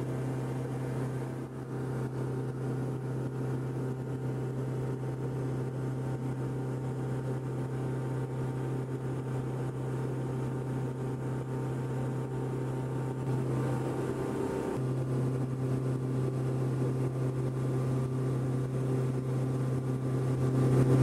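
Cessna 162 Skycatcher's four-cylinder Continental O-200 engine and propeller droning steadily in cruise flight, heard inside the cabin as a low, even hum. The tone shifts slightly about fifteen seconds in.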